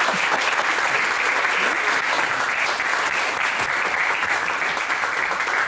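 Audience applauding: steady, dense clapping from a small crowd after a talk.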